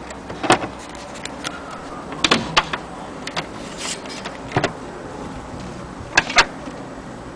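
Irregular mechanical clicks and knocks from a Columbia Grafonola table-top gramophone being handled: the winding crank being turned, then the tone arm and sound box being moved over the record. The loudest are a quick cluster of clicks about two and a half seconds in and two sharp knocks near the end.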